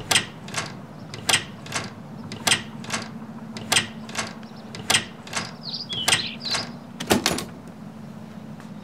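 A door lock or latch being worked by hand: a string of sharp clicks, often in pairs, about two a second, that stop near the end, over a faint steady hum.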